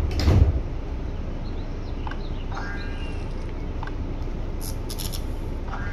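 Seibu 6000 series electric train running, its Hitachi GTO inverter drive falling away with a brief loud burst about half a second in. After that the train runs on with a steady, quieter rumble and a few short squeaks.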